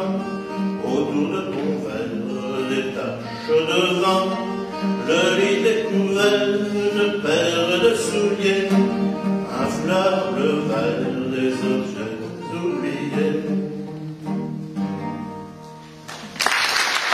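Steel-string acoustic guitar with a capo, picked through the closing bars of a song, with pitched notes that sometimes bend. The playing fades down and applause breaks out just before the end.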